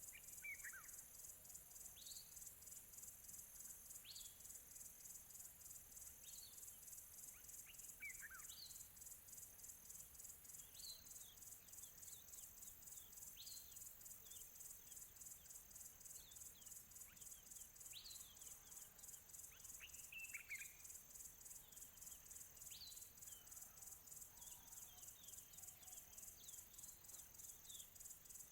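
Faint, steady high-pitched insect trilling, with songbirds giving short downward-sliding chirps every couple of seconds.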